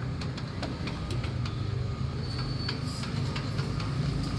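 Street traffic noise: engines running steadily, with scattered light clicks and taps over it, growing slowly louder.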